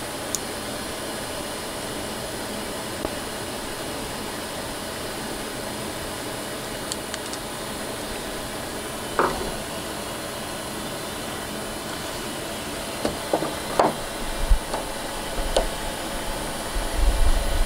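Steady background hiss of shop air noise, with a few small clicks and taps as a steel toggle clamp is screwed onto a wooden block with a hand screwdriver, a little more frequent near the end.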